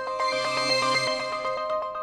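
Korg Modwave wavetable synthesizer playing a preset: a quick run of short repeating notes over held tones and a low bass note.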